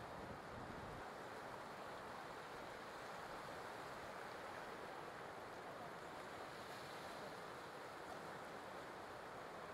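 Faint, steady wash of ocean surf on a beach, with no distinct events.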